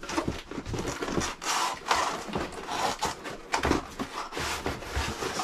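Cardboard rustling and scraping as a divider insert is worked loose inside a delivery box, in irregular scuffs and knocks.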